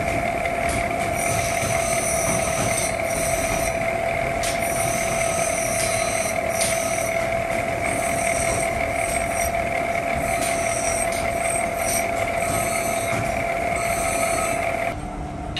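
Bench grinder running with a steady whine while steel hammer heads are ground against its abrasive wheel, the grinding hiss coming and going as each head is pressed on and eased off.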